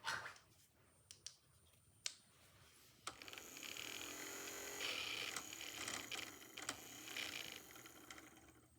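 A few sharp clicks, then a Snap Circuits toy electric motor with its fan blade running with a steady high-pitched whine and a wavering lower hum for about five seconds before fading out.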